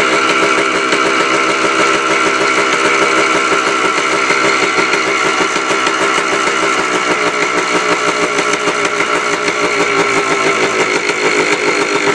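Yamaha Blaster's single-cylinder two-stroke engine idling steadily, its carburetor mixture screw set at about one turn out.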